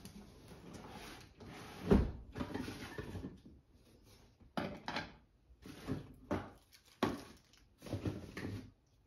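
Cardboard box and plastic parts being handled while unpacking: rustling and scraping, with a sharp thump about two seconds in, then a string of short knocks and rustles as green plastic parts are lifted out and set down on the floor.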